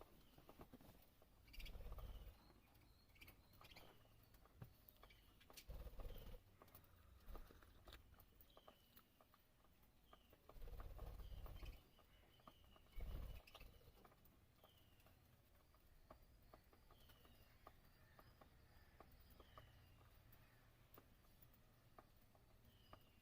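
Lovebirds giving faint, short, falling chirps every second or two, with light clicks and a few dull thumps in between.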